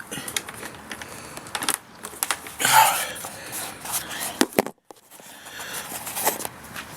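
Scattered clicks and rustling, with a brief dropout to silence just before five seconds in; no engine is heard cranking or running.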